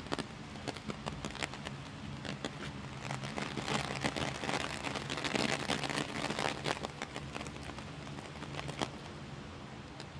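Heavy rain falling steadily, with many sharp, close drips and taps scattered through it, thickest and loudest in the middle few seconds.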